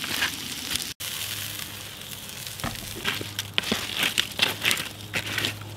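Campfire crackling and hissing. From about a second in, a wooden stick pokes and rakes through the hot coals, giving crunching scrapes and a run of sharp cracks.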